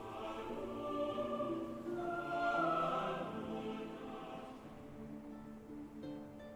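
Orchestral film score with a wordless choir of sustained notes, swelling to a peak about two to three seconds in and then easing off.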